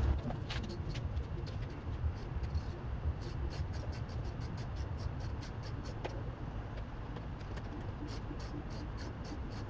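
Light, rapid clicking, several clicks a second, over a low steady rumble, from hands working on the motorcycle's parts.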